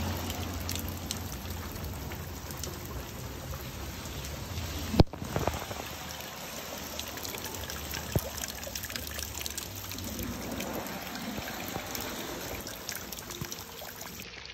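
Rain and runoff water trickling and dripping outdoors, with a sharp knock about five seconds in and a fainter one a few seconds later.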